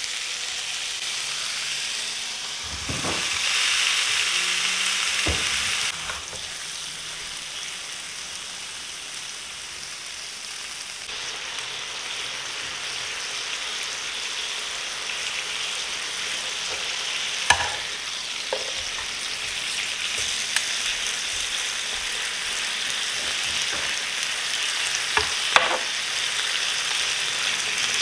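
Pork steak sizzling in a hot pan, with a steady hiss that swells louder for a few seconds near the start. A handful of sharp clicks and taps are scattered through.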